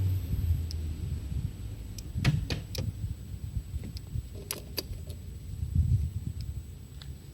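Yamaha TMAX 500 scooter's two-cylinder engine running with an uneven low rumble. Sharp metallic clicks are heard, three in quick succession a little over two seconds in and two more about four and a half seconds in: the engine knock being demonstrated.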